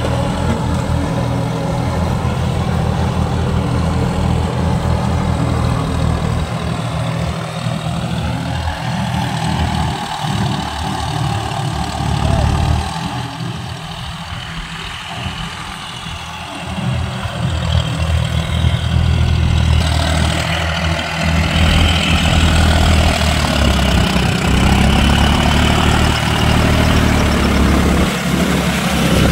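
John Deere tractor diesel engine running steadily while pulling a rotary tiller through a flooded paddy field. From about twenty seconds in it is louder and closer, with mud and water churning at the wheels.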